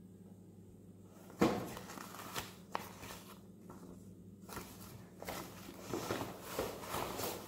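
Hands handling unboxed ring light accessories. There is a sharp knock about a second and a half in, then rustling of a paper booklet and packaging with a couple of sharp clicks.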